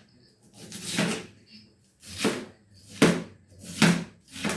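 A knife slicing through cabbage against a cutting board: five strokes, roughly one a second, each a short swell of noise.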